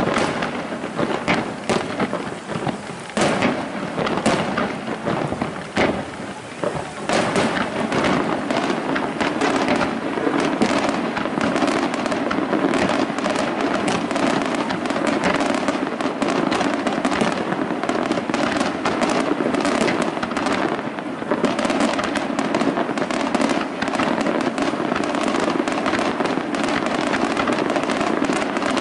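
Aerial firework shells bursting, first as separate sharp bangs in quick succession, then from about seven seconds in as a dense, continuous barrage of reports and crackle.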